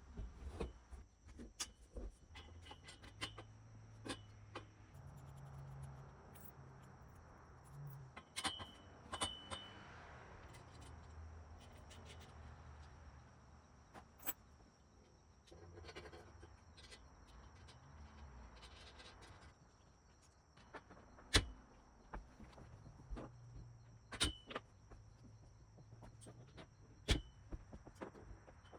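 Faint, irregular clicks and knocks of steel hammock-stand tubes and hardware being handled and fitted together, over a low background hum.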